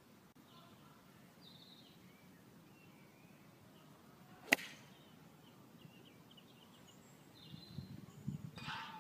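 A 4 iron striking a golf ball off the grass: one sharp click about halfway through. Near the end a clang with a ringing note follows, the ball hitting a metal crossbar far off. Birds chirp faintly in the background.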